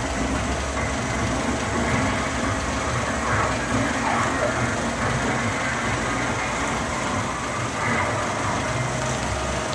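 Cinemeccanica Victoria 5 35mm film projector and its platter running film: a steady mechanical running noise with a low hum.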